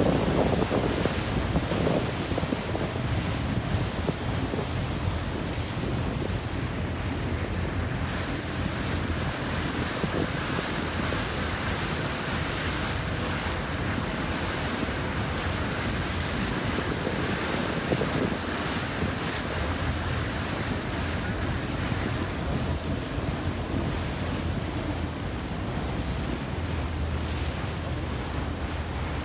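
Wind buffeting the microphone and sea water rushing and splashing past a moving boat, over a low steady hum.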